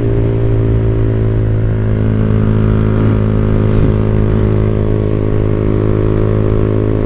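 Motorcycle engine through a WRX GP5 aftermarket exhaust with a 25 cm muffler and half baffle, running at a steady engine speed with an even, deep note.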